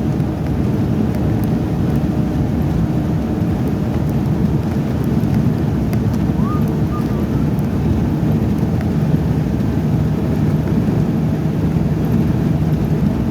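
Steady low rumble of heavy engines and traffic at a road construction site, with a faint short squeak about six and a half seconds in.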